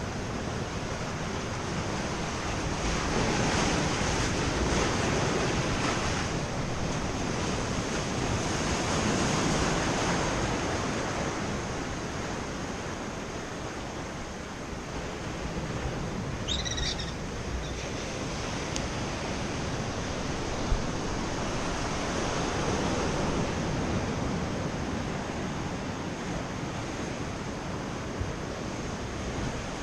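Ocean surf breaking and washing up the beach, the roar swelling and ebbing over several seconds at a time, with a brief high chirp about halfway through.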